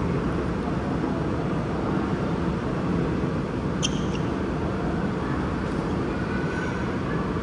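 Steady low rumble of shopping-mall background ambience, with one brief high clink about four seconds in.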